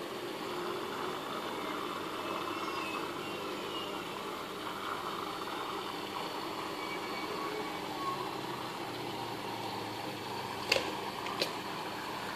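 Steady hum of an aquarium pump running, with two sharp clicks close together near the end.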